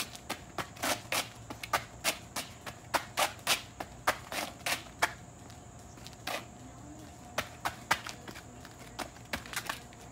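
Sneakers slapping and scuffing on asphalt in quick, uneven steps and hops, about two or three a second, thinning out to a single step for a couple of seconds in the middle.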